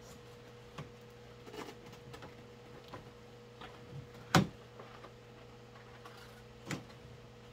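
Plastic parts of a new Shark vacuum being handled and pushed together during assembly: scattered light clicks and knocks, the loudest about four seconds in and another near seven seconds, over a faint steady hum.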